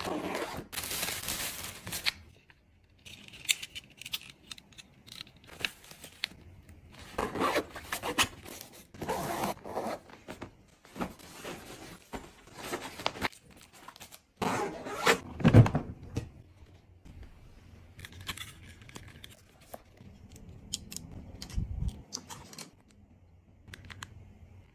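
Close-up packing sounds: plastic sachets and fabric pouches rustling and crinkling as they are handled and slipped into a hard-shell suitcase, in a string of separate bursts with light clicks between. The loudest is a soft thump about two-thirds of the way through.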